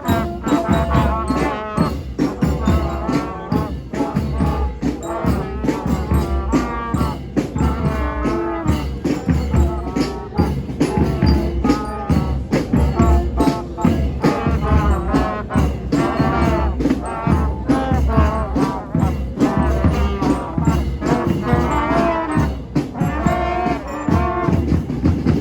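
Music with a steady beat and a wavering melody line.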